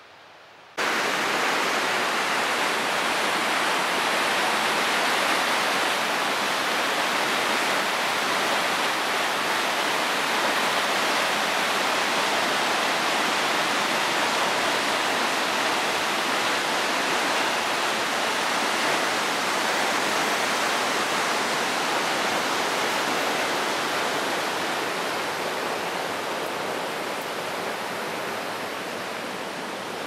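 Fast mountain stream rushing over rapids: a steady, loud wash of white water that starts abruptly about a second in and eases slightly near the end.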